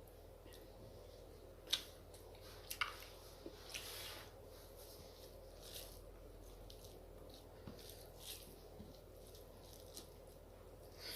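Close-up eating sounds: soft chewing and wet mouth clicks, with a few sharper clicks in the first three seconds.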